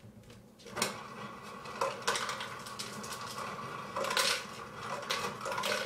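Refrigerator door ice dispenser dropping ice cubes into a plastic bowl, an irregular clatter with louder bursts about one, two and four seconds in.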